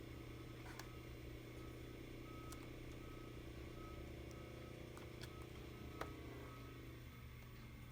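Electric motor run by a Yaskawa GPD 515 variable-frequency drive under test, a steady hum with a layered whine and a few light clicks. About six seconds in there is a sharp click, and the motor's whine dies away soon after, leaving only a low hum.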